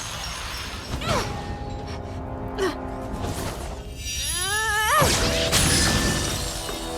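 Dramatic film-score music before the singing begins: held tones struck by sharp hits about a second in and again about two and a half seconds in. A wavering rising sound around four seconds in swells into a louder, fuller passage.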